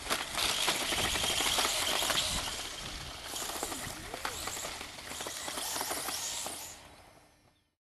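Electric RC motocross bike with a brushless motor driven hard over dirt and gravel: a rushing hiss of motor and tyres with many small clicks of grit, fading out about seven seconds in.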